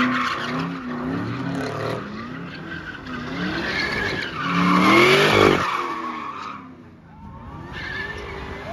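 Car engine revving up and down as its rear tyres spin and squeal through smoky donuts. The revs and the tyre noise build to the loudest moment about five seconds in, then drop away sharply before the engine comes back steadier near the end.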